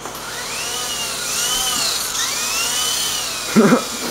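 Electric motor and rotors of a small remote-control helicopter whining in flight, the pitch rising and falling twice as the power is changed.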